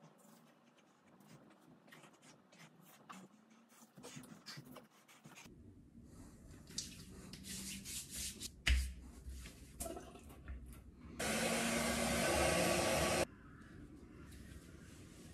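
Rubbing and handling sounds of someone getting ready, with one sharp thump about nine seconds in. Then a loud, steady hiss starts suddenly, lasts about two seconds and cuts off sharply.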